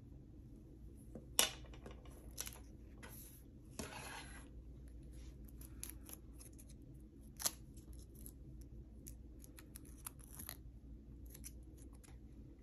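Faint handling sounds of dry nail polish strips being peeled and pressed onto fingernails: scattered sharp clicks and short scratchy rustles, with a longer scrape about four seconds in.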